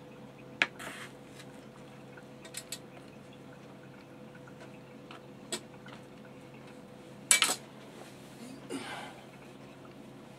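Kitchen knife cutting yellow potatoes on a cutting board, with scattered sharp knocks of the blade on the board and the clatter of cut pieces set into the oven tray; the loudest clatter comes a little after seven seconds in.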